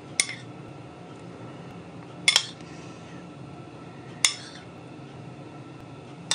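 A spoon clinking against a ceramic dish and plate while spooning out yogurt: four sharp clinks about two seconds apart, the second a quick double.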